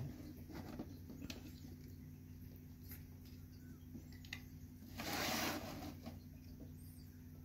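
Cat nosing and pawing at a plush-and-plastic Santa chimney-climbing toy: scattered faint taps and rustles, with one louder scraping rustle about five seconds in.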